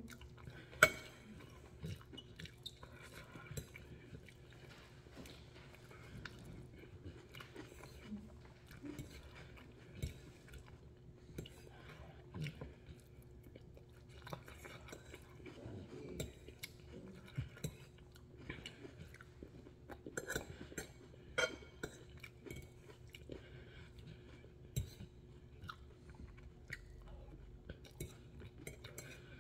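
Close-up chewing of noodles and vegetables, with repeated small clicks and clinks of a metal fork against the plate; the sharpest clink comes about a second in.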